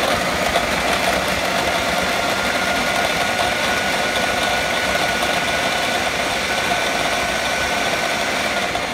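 Ninja food processor motor running steadily with its dough attachment fitted, shredding drained canned jackfruit: a continuous whirring drone with a faint steady high tone.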